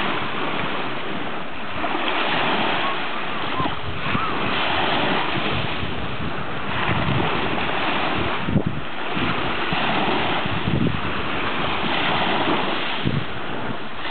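Small waves breaking at the shoreline and washing up over a fine pebble beach, the wash swelling and easing every two seconds or so. Wind buffets the microphone now and then with short low thumps.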